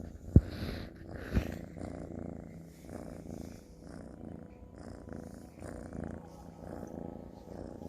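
Kitten purring steadily in an even, pulsing rhythm, with two sharp knocks about half a second and a second and a half in.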